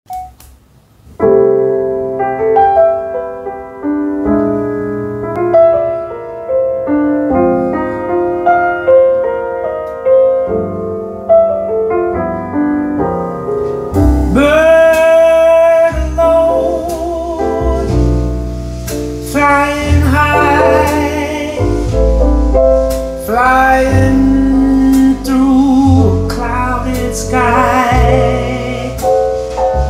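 Introduction to a jazz ballad. Solo piano plays for about the first half; then bass and a lead melody line with wide vibrato come in, and the band plays on together.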